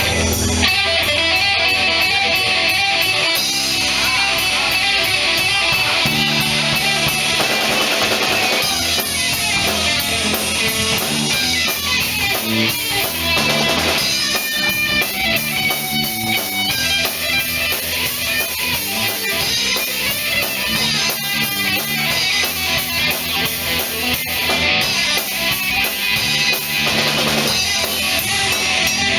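Live band playing an instrumental passage on electric guitar, with bass and a drum kit keeping a steady beat.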